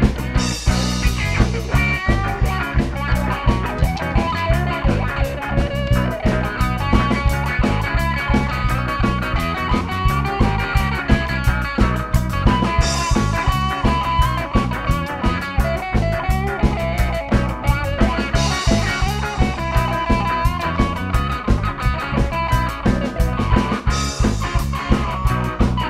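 Rock band playing: electric guitars over a drum kit keeping a steady beat, with a cymbal crash about every five seconds.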